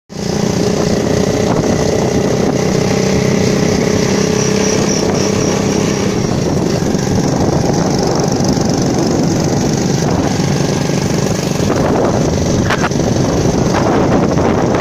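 Three-wheeled motorcycle running steadily on the move, its engine hum mixed with road noise.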